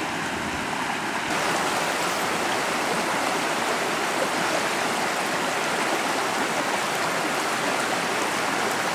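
A shallow, rocky mountain creek running over riffles: a steady rush of water, which grows a little louder and brighter a little over a second in.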